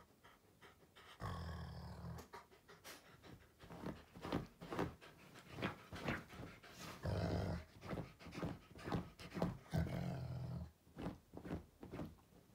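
Dog growling low in three short spells, with quick breathy panting between them.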